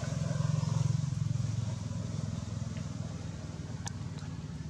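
A motor engine running steadily with a low pulsing hum, a little louder in the first second and a half and easing slightly after. A single sharp click comes near the end.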